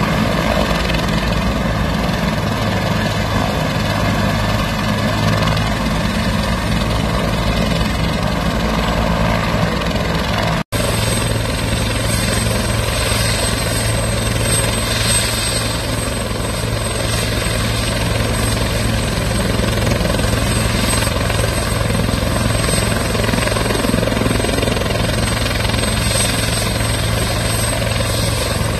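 A helicopter running on the ground with its rotors turning: a steady blade beat under a turbine whine, which becomes a clear high whine after a brief dropout about eleven seconds in. Near the end the whine starts to rise as the helicopter powers up.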